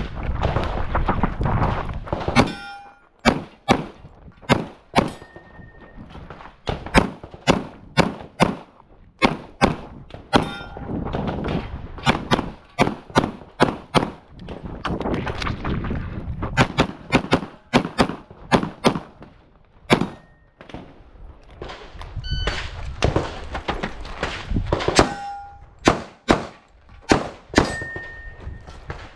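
Pistol shots fired in rapid strings while a USPSA stage is being shot, with short pauses between strings and a few brief metallic ringing tones among the shots.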